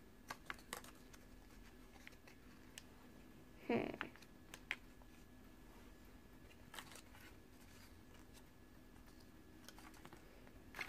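Faint scattered clicks and light rustling of small paper recipe cards being handled and shuffled, with one brief louder sound about four seconds in that falls in pitch.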